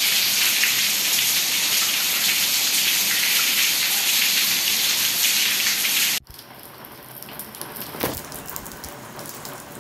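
Rain falling hard, a steady loud hiss. About six seconds in it cuts off abruptly and gives way to softer rain with scattered drips and drops.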